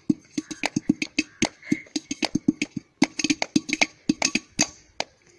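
Upturned metal cooking pot played as a hand drum in a fast gana rhythm, its strokes giving short ringing low notes, with sharp hand claps mixed in. The rhythm stops briefly about three seconds in, then goes on.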